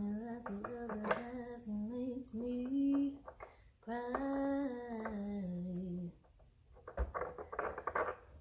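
A woman humming a tune to herself in two long phrases of held notes. About seven seconds in come a few light clicks and clinks of parts being handled.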